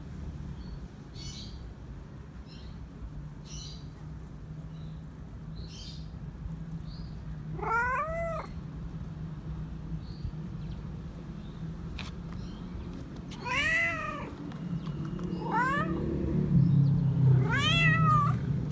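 Tabby stray cat meowing four times: one rising-and-falling meow about eight seconds in, then three more in quick succession near the end. A steady low rumble runs underneath and grows louder near the end.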